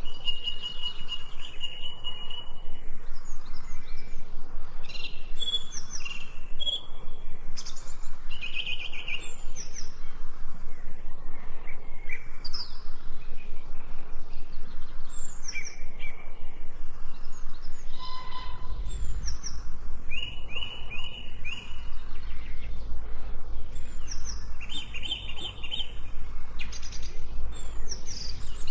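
Several songbirds chirping and trilling over a steady background hiss. A low rumble comes in about two-thirds of the way through.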